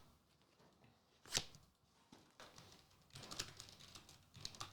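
Trading card packs and packaging being handled: one sharp tap about a second in, then a run of crisp clicks and crinkles near the end.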